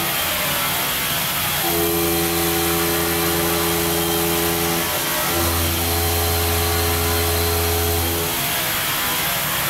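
CNC stone milling centre cutting marble under water spray: a steady hiss of the wet cut over a low motor hum that changes pitch every few seconds as the machine moves.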